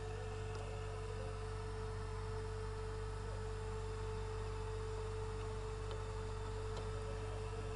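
A steady electrical hum: a low drone with a constant higher tone above it, and a few faint ticks.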